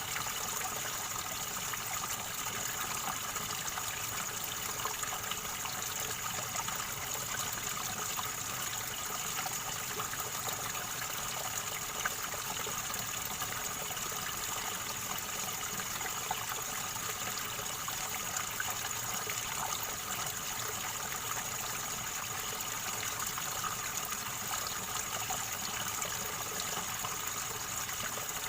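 River water gurgling and rushing steadily over rocks, an even, unbroken wash of sound.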